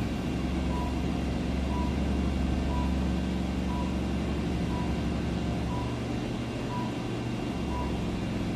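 A machine's motor humming steadily for about nine seconds, with a short high beep about once a second throughout.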